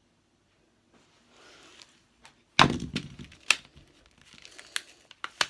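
Metal handcuffs being handled: faint rustling, then a loud knock about halfway through, followed by a few separate sharp clicks.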